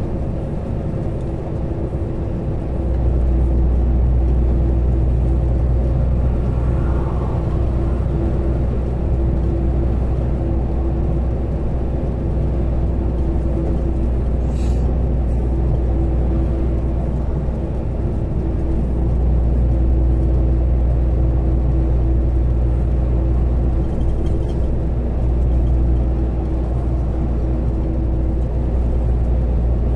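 Steady drone of a truck's engine and road noise heard from inside the cab at highway speed, with a constant hum over it; the low rumble gets louder about three seconds in and stays up.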